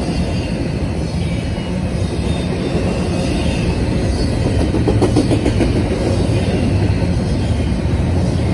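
Freight train of double-stack intermodal well cars rolling past, a steady, loud rumble of steel wheels on rail.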